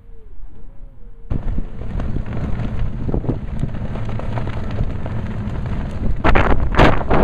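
Wind buffeting the microphone on a ship's open deck, cutting in suddenly about a second in and gusting harder near the end. Before it, a faint wavering tone.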